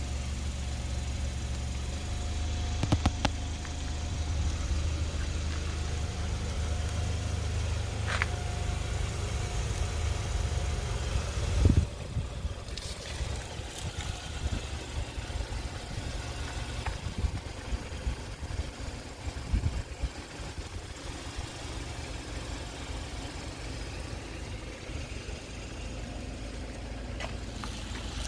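A car engine idling with a steady low hum. About twelve seconds in there is one loud thump, after which the hum gives way to an uneven low rumble with a few scattered knocks.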